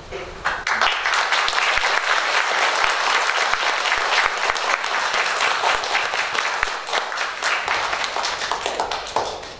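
Audience applauding, many hands clapping together. It starts about half a second in and dies away near the end.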